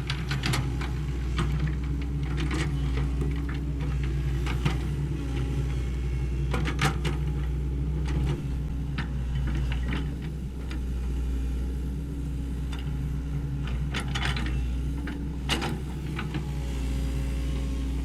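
Sany SY75C excavator's diesel engine running steadily at a low hum, with occasional sharp clicks and knocks over it.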